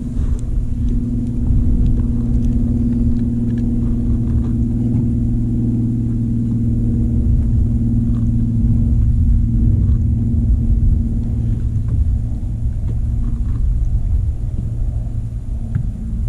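Wind buffeting the microphone in a steady low rumble, over the even electric hum of a bow-mounted trolling motor that fades out near the end.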